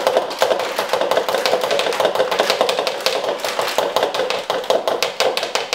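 Metal mesh sieve shaken rapidly over a plastic mixing bowl, a fast continuous rattle of taps as almond meal and powdered sugar are sifted for macaron shells.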